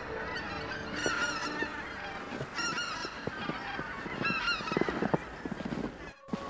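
A flock of wild geese calling in flight, a series of short honks repeating about once a second. In the second half a run of short knocks comes in beside the calls.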